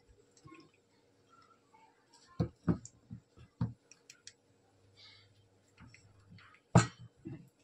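Hand mixing thick pakora batter in a steel bowl: irregular soft slaps and dull knocks of the bowl, the loudest near the end.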